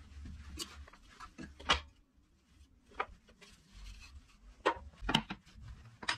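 Scattered light knocks and clicks of wooden pieces being handled, about half a dozen in all, the sharpest just under two seconds in.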